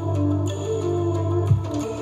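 Music with a beat: a sustained bass line and melody notes, with a kick drum hit about one and a half seconds in.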